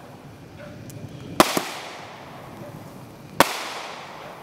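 Aerial fireworks going off: two sharp bangs about two seconds apart, each trailing off.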